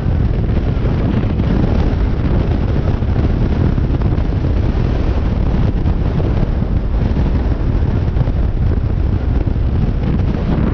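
Heavy wind buffeting the microphone of a camera on a moving motorcycle, a steady loud low rumble that covers everything else.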